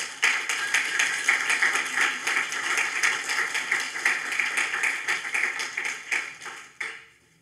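Audience applauding after a poem: dense clapping that dies away near the end, with one last clap.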